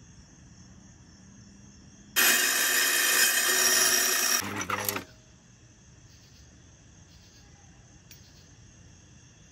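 Wet tile saw cutting through a sheet of herringbone tile: a loud, high grinding whine that starts suddenly about two seconds in and stops about five seconds in, with some rattling just before it ends. The blade is chipping away the small pieces, which the owner suspects means it needs replacing.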